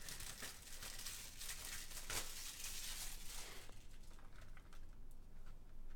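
Faint crinkling of thin plastic shrink wrap being peeled and pulled off a Blu-ray case, which clings in places because it is old. The crackling is busiest for about the first three and a half seconds, then dies down to a few light handling sounds.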